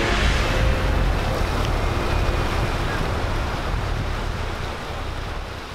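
Ocean surf washing onto a sandy beach, with wind rumbling on the microphone. It fades out gradually near the end.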